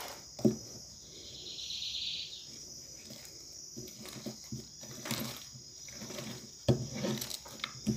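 Hands kneading and pressing homemade slime on a tabletop: quiet handling noise with a few light knocks. A short high-pitched trill comes about a second in.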